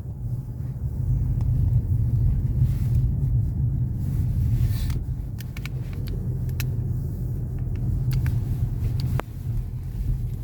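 Steady low engine rumble of a moving vehicle, with a few light clicks and knocks in the middle.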